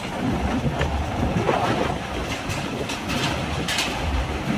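Heavy truck towing an empty flatbed semi-trailer, rolling up a steel ferry loading ramp: a low rumble with several loud clanks as the trailer crosses the ramp.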